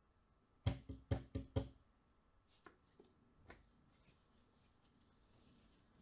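Five quick, loud knocks on a door within about a second, followed by a few fainter taps.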